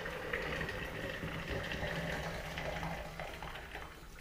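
Just-boiled water being poured from a kettle into a metal billy can, a steady splashing stream that grows quieter near the end.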